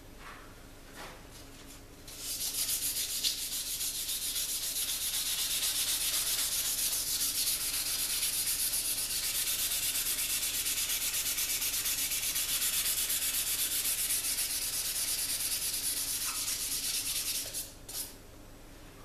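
Green abrasive scouring pad scrubbed rapidly back and forth along an etched Damascus and wootz steel knife blade: a steady rasping hiss that starts about two seconds in and stops shortly before the end. The scrubbing cleans up the etched surface between etching dips.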